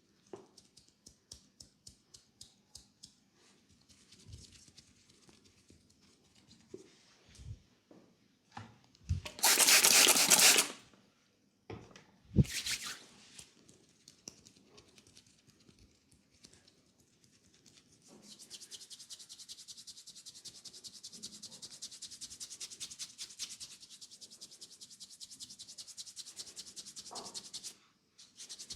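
Hands rubbing and scratching hair and scalp in a head massage. Light rhythmic strokes come first, then a loud hissing rub about ten seconds in, and fast, steady rubbing through the last ten seconds.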